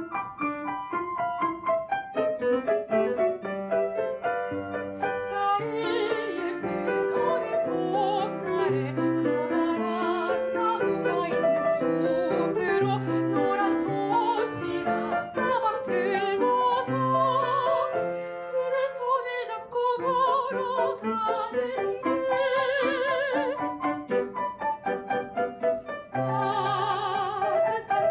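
Background music: a piano plays, and a soprano voice joins about five seconds in, singing in a classical style with a wide vibrato over the piano.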